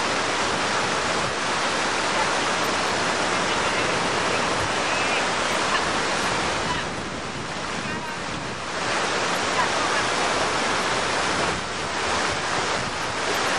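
Fountain water splashing and rushing in a steady hiss. It is quieter for about two seconds midway through and again briefly near the end.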